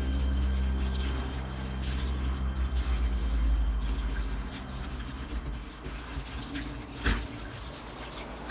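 Tap water running into a stainless steel kitchen sink while it is scrubbed with a sponge. A single sharp knock comes about seven seconds in.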